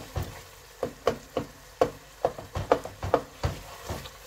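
Wooden spoon knocking against a coated cooking pot, about a dozen quick, uneven strokes, as boiled brain pieces in thick masala are broken up.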